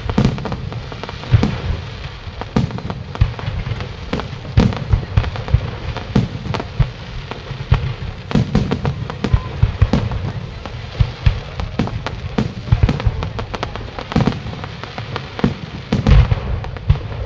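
Fireworks display: aerial shells bursting in a dense, irregular series of sharp bangs, about two or three a second, with a continuous crackling hiss between them.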